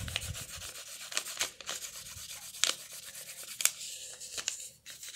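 Red colouring pencil scribbling back and forth on paper in quick scratchy strokes, with a few sharper ticks and a short pause near the end.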